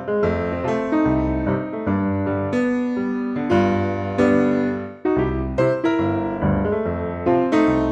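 Background music: an upbeat piano tune with a bass line and regular chord changes.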